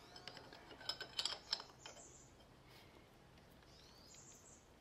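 Faint metallic clicks and ticks from a wrench turning the press bolt of a chain riveting tool as it flares a motorcycle chain's connecting-link rivet pin. The clicks come in a quick irregular cluster within the first two seconds, then stop.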